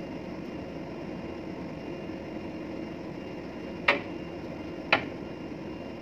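Steady low machinery hum of a ship, with two sharp knocks about a second apart, a little after the middle.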